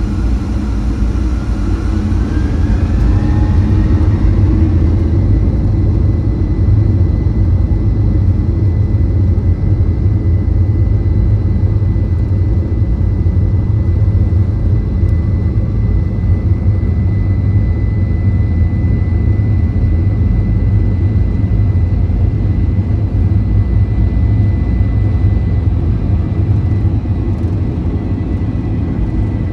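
Boeing 737-800's CFM56-7B jet engines spooling up to takeoff thrust over a loud low rumble: a whine rises over the first few seconds, then holds as one steady high tone through the takeoff run.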